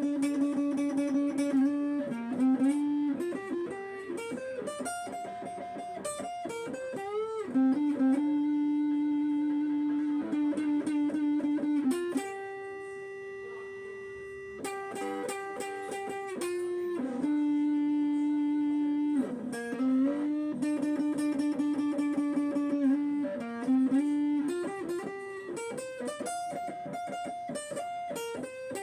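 Gibson Les Paul Tribute electric guitar played through an Orange Crush 12 amp with the overdrive and gain all the way up, treble down and bass up: long sustained lead notes with string bends, broken up by quick runs of picked notes.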